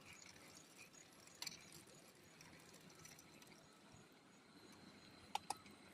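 Near silence, with a faint tick about one and a half seconds in and two quick sharp clicks near the end.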